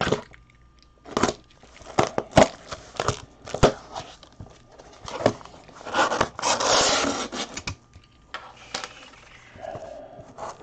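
Sealed cardboard shipping case being opened by hand: packing tape cut and torn, cardboard flaps scraping and bending back, with sharp clicks and knocks and a longer tearing rasp about six seconds in.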